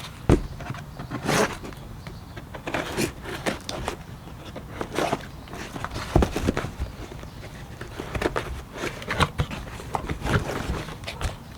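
Irregular knocks, scrapes and rustles of a clutch kit being handled and unpacked from its box and tight wrapping.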